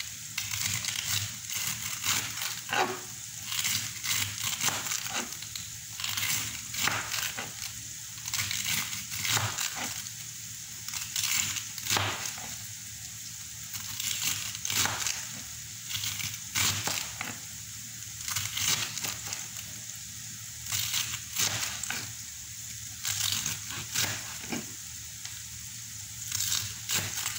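Chef's knife shredding a head of cabbage on a plastic cutting board: quick runs of crisp crunching cuts, each run a second or so long, with short pauses between.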